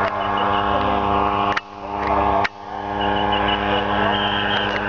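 Powered paraglider trike's engine and propeller droning steadily overhead at an even pitch, the sound dropping out briefly twice near the middle.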